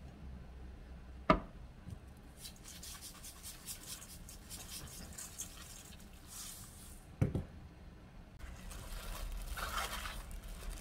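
Seasoning a spring cabbage salad in a stainless-steel bowl: two sharp knocks, about a second in and about seven seconds in, with light pattering between them as sesame seeds are sprinkled. Near the end comes the rustling and squishing of leaves tossed by plastic-gloved hands.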